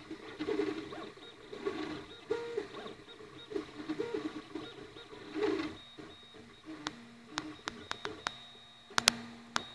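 Flashforge Creator 3D printer's stepper motors whining as the print head moves, the tone jumping between pitches with each move. A few sharp clicks come near the end.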